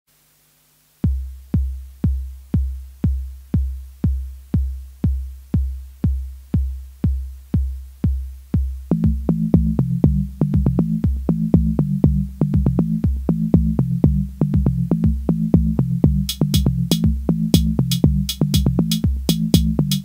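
Electronic dance music opening with a steady drum-machine kick, about two beats a second, starting about a second in. A synth bass line joins around the middle, and high ticking percussion is added near the end.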